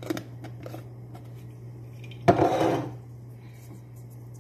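Kitchen handling noise while spices are readied: a few light clicks, then a short rustling scrape lasting about half a second, about two seconds in. A steady low hum runs underneath.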